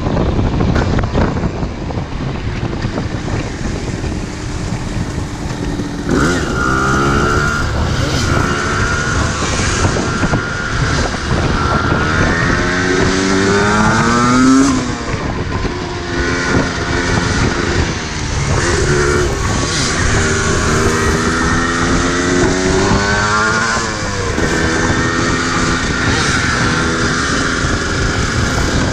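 Yamaha DT 125 single-cylinder two-stroke motorcycle engine under way, revving up and dropping in pitch at each upshift as the bike accelerates through the gears. Wind buffeting on the microphone covers the engine until about six seconds in.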